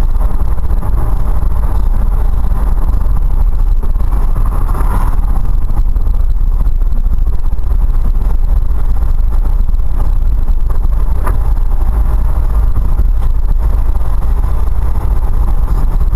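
Steady low rumble of a fire engine's cab while it is being driven, engine and road noise picked up by the dashcam.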